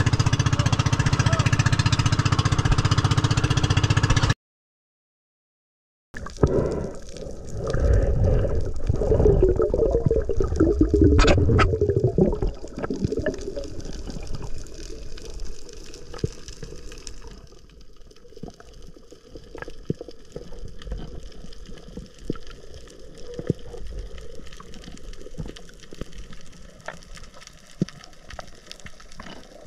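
Steady motor and rushing spray of a motorized outrigger boat underway, cutting off abruptly about four seconds in. After a short gap, underwater sound: a loud rush of bubbles and gurgling as the diver goes down, fading after about ten seconds into a quieter underwater hiss with scattered sharp clicks.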